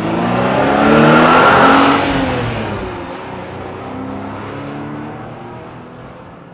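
Wolf GB08 race car's engine revving, its pitch climbing and dropping. It is loudest in the first two seconds and fades steadily after that.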